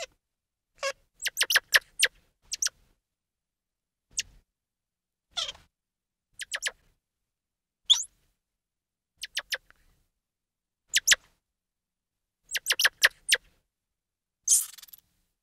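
Squirrel monkey calls: short, high-pitched chirps and peeps in quick clusters of two to five, with silent gaps of about a second between clusters. One longer, rougher squeal comes near the end.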